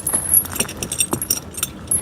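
pewag Doppelspur steel tractor snow chain links clinking and jingling as the chain is handled: a quick, irregular run of metallic clinks.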